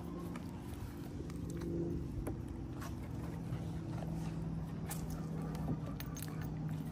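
Two dogs licking and lapping food scraps off a wooden picnic table, with scattered short wet clicks of tongues on the boards, over a steady low hum.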